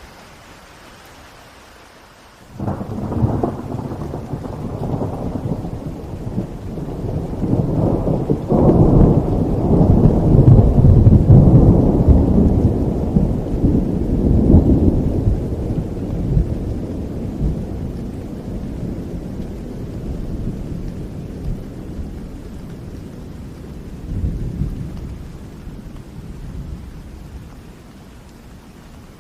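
Steady rain with a long roll of thunder that breaks in suddenly about two and a half seconds in, grows to its loudest about halfway through, and rumbles slowly away, with one more swell near the end.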